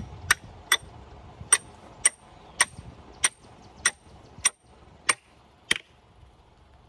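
Hammer striking a metal fence staple into a wooden fence post to fasten barbed wire: about eleven sharp, ringing blows, roughly two a second, which stop near the end.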